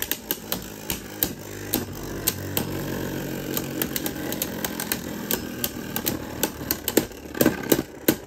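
Two Beyblade Burst tops, Astral Kitty and Wind Knight, spinning together on a plastic stadium floor. They make a steady whirring buzz, with repeated sharp clacks as they knock into each other, and the clacks grow stronger near the end.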